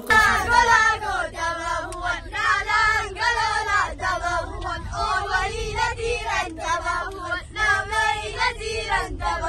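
A group of schoolchildren singing together in unison, with the low steady rumble of the moving bus underneath.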